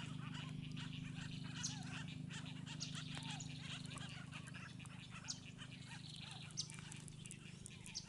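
Mixed bird calls from the mangroves: many short chirps and twitters, with a soft arched note repeated every second or two. A steady low hum runs underneath.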